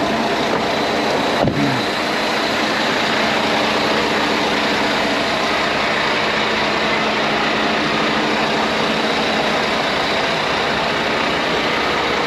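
Truck-wash air dryers blowing a steady rush of air over a semi truck, with the truck's diesel engine idling underneath. A single sharp knock sounds about a second and a half in.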